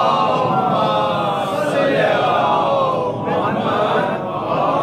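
A male congregation reciting salawat together in unison: the chanted blessing on the Prophet Muhammad and his family, sung in long, drawn-out phrases that rise and fall.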